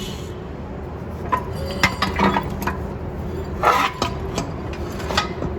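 Metal brake parts and tools clinking and knocking together as they are handled, about half a dozen separate sharp clinks.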